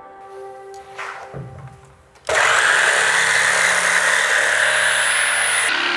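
Soft background music, then about two seconds in an electric jigsaw starts cutting through plywood and runs steadily. Near the end its high whine stops and the sound begins to fade as the saw winds down.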